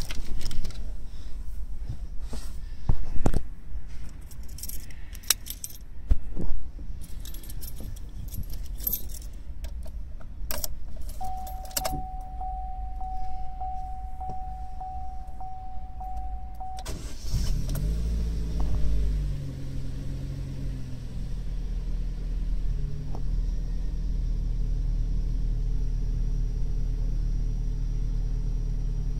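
Keys jangling and clicking around the ignition, then a steady electronic tone for about five seconds with the ignition on. About seventeen seconds in, a Chevrolet Cruze's engine starts, flares briefly and settles into a steady idle.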